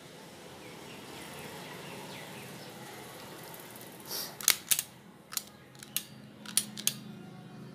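Plastic corner cutter clicking as it is handled and its lever and blade are worked: about seven sharp clicks starting about four seconds in, over a faint steady hum.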